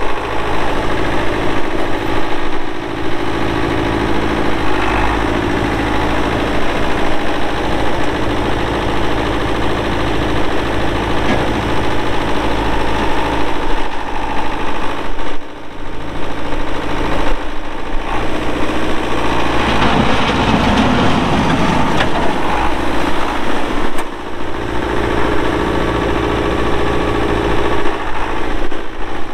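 A 1976 Case 1210 tractor's three-cylinder diesel engine runs steadily while the tractor drives and turns under its own power. The engine note shifts around two-thirds of the way through, and the level dips briefly twice.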